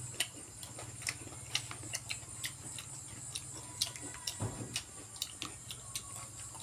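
Mouth sounds of people eating: irregular wet clicks and smacks of chewing, about two or three a second, over a steady low hum.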